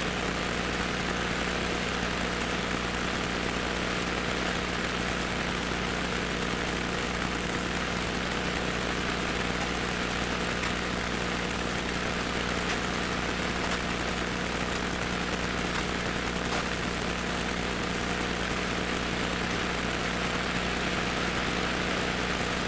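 Single-engine piston airplane's engine and propeller running steadily at low taxi power, heard from inside the cockpit.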